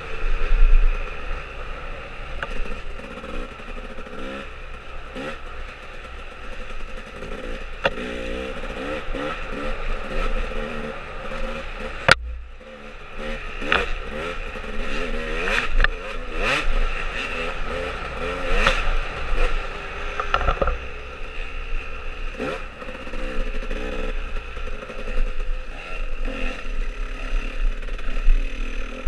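Dirt bike engine heard on board, its pitch rising and falling with the throttle, with clatter and knocks from the bike over trail bumps. A sharp knock about twelve seconds in is followed by a brief lull as the throttle closes.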